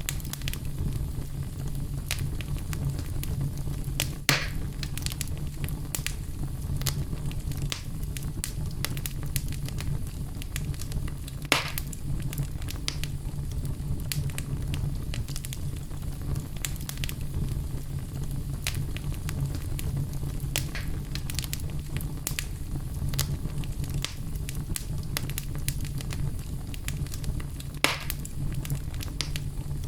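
Fireplace wood fire crackling, with a steady low rumble under many small crackles. Three louder pops come about four seconds in, near twelve seconds and near the end.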